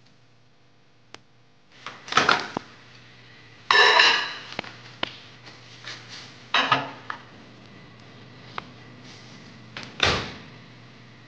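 Samsung microwave oven being loaded with a plate: a series of sudden clunks and clatters from the door and the dish, then the door shutting with a thud about ten seconds in.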